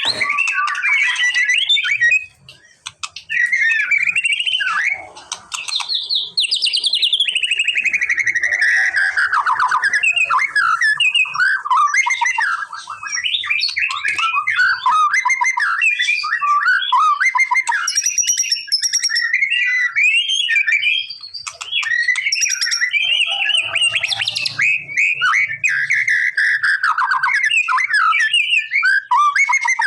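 White-rumped shama singing a long, varied song of loud whistles, warbles and rapid chattering phrases, with short breaks in the first few seconds.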